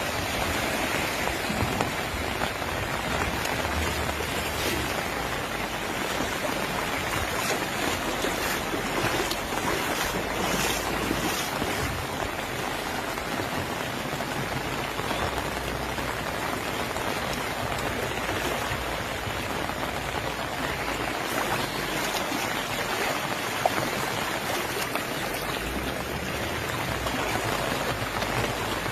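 Heavy rain falling steadily, with floodwater running over the street.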